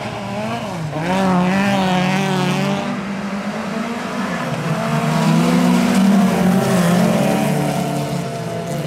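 Several folkrace cars' engines revving hard together while racing, their pitch rising and falling with gear changes and throttle. The sound swells about a second in and again in the middle.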